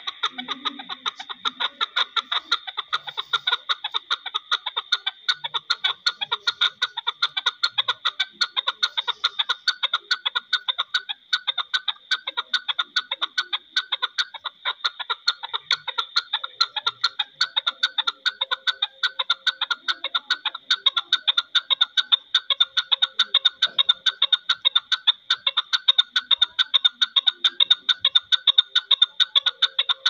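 Chukar partridge giving its long rallying call: a rapid, unbroken run of repeated chuck notes, several a second, growing louder in the second half.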